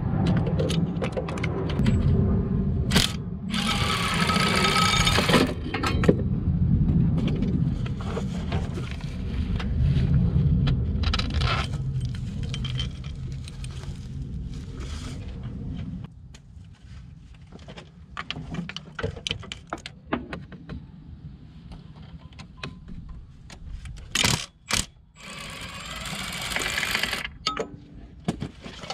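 Socket wrench on a long extension undoing a starter motor bolt, then the bolt worked out by hand: a run of metallic clicks, clinks and scraping from the tools and bolt.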